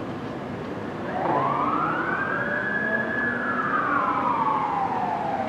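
Fire truck siren wailing: starting about a second in, it climbs in pitch, holds high, then slides slowly back down, over the low rumble of the truck moving off.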